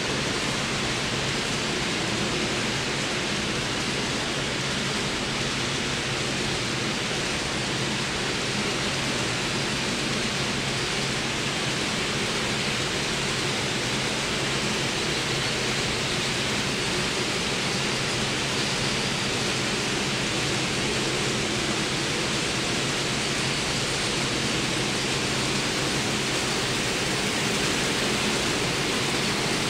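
Steady, even hiss of background noise with a faint low hum, unchanging throughout and with no distinct events.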